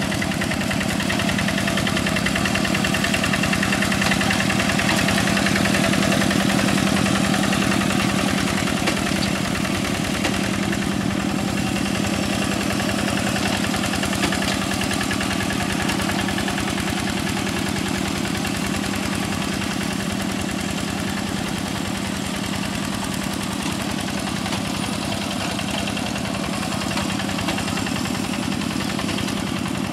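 Quick G1000 two-wheel hand tractor's single-cylinder diesel engine running steadily under load as it tills flooded paddy mud, with a fast, even beat of firing strokes.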